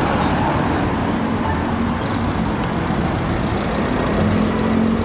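A red London double-decker city bus driving along a street, its engine running steadily under road and traffic noise.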